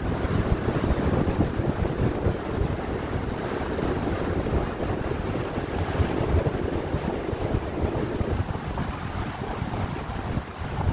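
Wind buffeting the microphone: a steady, gusting rumble with no other clear sound.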